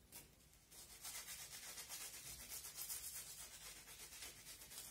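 Halved garlic clove rubbed over crisp pan-fried bread: a faint, scratchy rasping in quick repeated strokes, starting about a second in.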